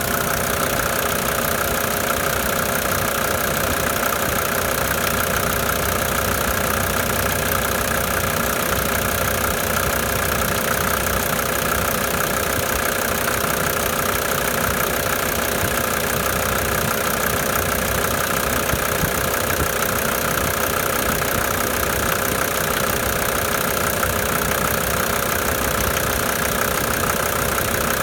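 Mercedes OM605.911 five-cylinder diesel idling unevenly, with an irregular, intermittent knocking or clatter. New injector nozzles and original injection-pump lines have not cured the rough running or the knock; the owner first suspected the injectors but now rules them out.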